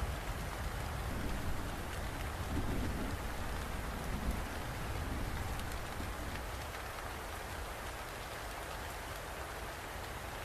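Steady rain falling, with a low rumble of distant thunder dying away over the first few seconds.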